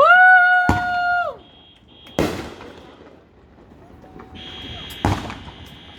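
Fireworks going off: three sharp bangs spread over the few seconds. A loud, high, held whistle-like tone runs through the first second and a half and then drops away, and a thinner high steady tone sets in near the end.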